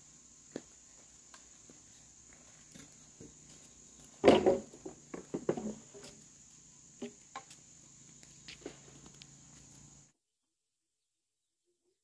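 Insects, likely crickets, drone steadily on one high note, with scattered knocks and clicks and a loud burst of clatter about four seconds in. All sound cuts off abruptly about ten seconds in.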